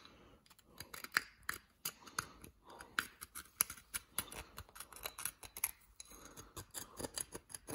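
Small screwdriver with a bent Torx bit scraping crusted deposits out of the seal groove in a Yamaha VMax 1200 brake caliper's bore: a run of irregular small metal scratches and clicks. The crud built up behind the seal is what was pushing the seal against the piston and making it stick.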